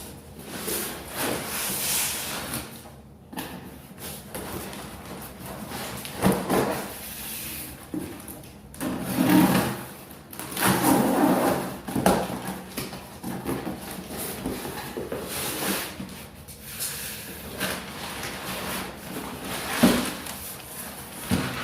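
Cardboard box and packaging being handled and opened: irregular scraping, rustling and knocks.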